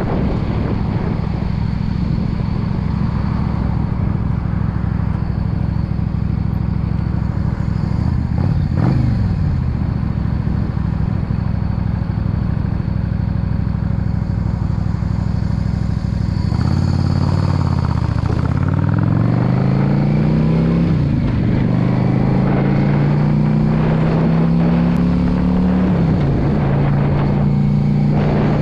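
Yamaha V Star 650 Custom's air-cooled V-twin running under a rider at steady cruising speed, with wind noise underneath. Past the middle the engine note drops as the bike slows, then rises again in steps through gear changes as it accelerates, and settles to a steady cruise near the end.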